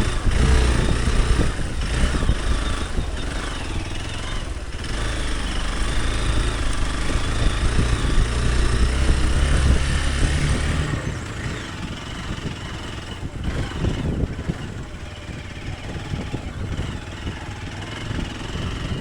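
Hero Xpulse 200 Pro single-cylinder engine running under way, a strong low rumble with a rushing noise over it, which eases and goes quieter about eleven seconds in.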